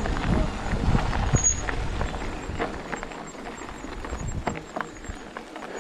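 Mountain bike rolling fast down a loose dirt and stone trail: tyres crunching over the ground, with knocks and rattles from the bike and wind on the microphone. Loudest for the first two to three seconds, then easing off, with two short high squeaks in the first second and a half.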